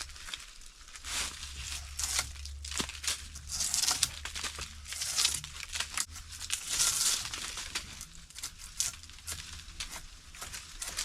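An old hand drawknife peeling bark off a pitch pine pole: a run of long scraping, tearing strokes, one every second or so.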